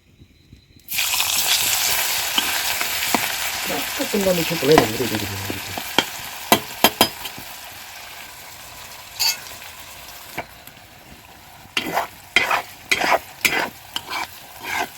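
Food dropped into hot oil in a pan starts sizzling suddenly about a second in, and the frying hiss slowly dies down. A utensil stirs and knocks against the pan, most often in the last few seconds.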